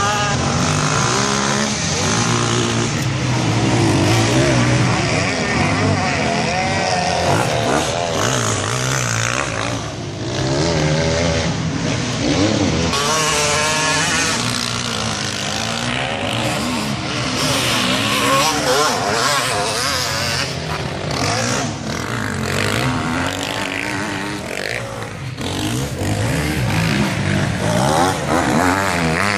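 Motocross dirt bike engines revving up and down as the bikes lap the track, the pitch rising and falling again and again with throttle and gear changes, often with more than one engine at once.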